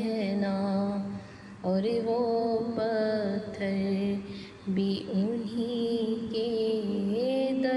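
A woman singing an Urdu naat in long melodic phrases, over a steady low drone. The singing breaks off briefly twice, about one and a half and four and a half seconds in.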